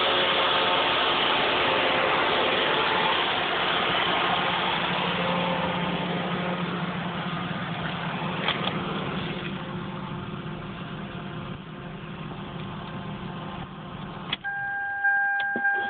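2001 Toyota Celica GT's 1.8-litre four-cylinder engine running with a loud hissing leak, which the owner suspects is a vacuum leak or a head gasket leak. The hiss slowly fades. Near the end there is a click, the engine sound stops, and a steady high electronic tone sounds.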